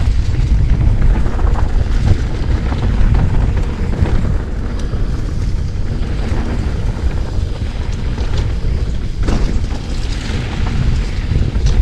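Wind buffeting the action camera's microphone and tyres rumbling over a dirt trail as an electric mountain bike rides downhill, with a sharp knock about nine seconds in.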